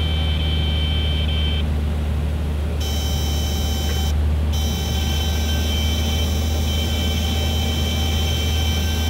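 Steady low drone inside a Beechcraft A36 Bonanza's cockpit in flight: the single piston engine and airflow running evenly, with no change in pitch.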